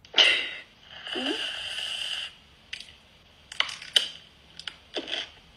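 Aerosol whipped-cream can spraying: a short burst of hiss, then a steady hiss lasting over a second as the cream is sprayed. A few short clicks and smacks follow as the cream-topped pickle is bitten and eaten.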